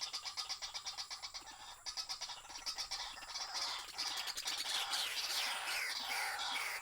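Birds calling: a rapid, evenly pulsing call for the first couple of seconds, then many overlapping calls of repeated falling notes that grow louder about halfway through.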